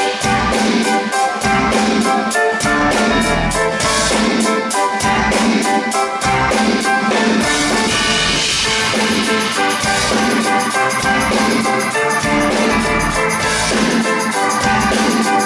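Live band music with a drum kit keeping a steady, quick beat under sustained guitar and keyboard-like tones: the instrumental intro of a rock/hip-hop song played loud over a PA.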